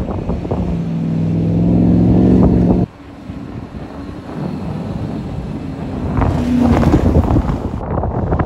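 Supercharged Chevrolet Silverado's V8 engine revving hard under load up a sand dune, its pitch rising steadily, cut off abruptly about three seconds in. After that a quieter engine mixed with wind noise, then another 4x4's engine revving louder near the end.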